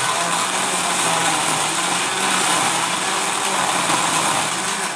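Electric countertop blender running steadily on its number 1 setting, its motor whining as it blends ice, banana, syrup and milk into a smoothie.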